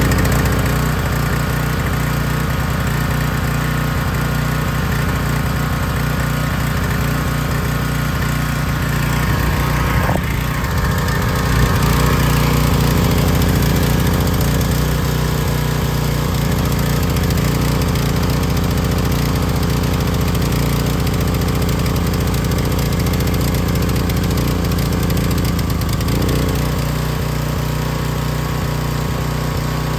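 Troy-Bilt pressure washer's small gas engine running steadily just after starting, with slight shifts in its note about ten seconds in and again near the end. It is being rechecked after its auto choke was found stuck partly on, a fault that made it run rough and rich.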